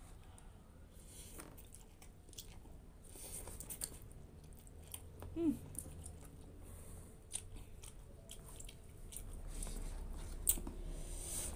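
A person chewing a mouthful of instant fried noodles, with small wet mouth sounds and scattered light clicks. One brief low vocal sound, falling in pitch, comes about halfway through.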